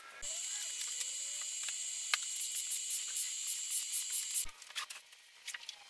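A steady high hiss for about four seconds that starts and stops abruptly, followed by short, light scraping strokes of a glue spreader on plywood.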